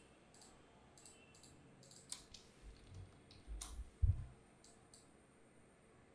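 Faint computer mouse clicks and keyboard key presses, scattered and irregular, with a soft low thump about four seconds in.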